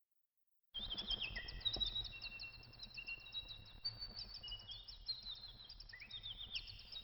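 Silence for under a second, then birdsong ambience: many quick high chirps and short trills from several birds over a low, steady background rumble and hiss.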